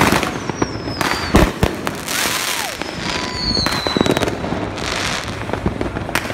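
Street fireworks and firecrackers going off, with sharp bangs at irregular intervals and the loudest about a second and a half in. Two whistling fireworks sound near the start and about three seconds in, each whistle falling slowly in pitch.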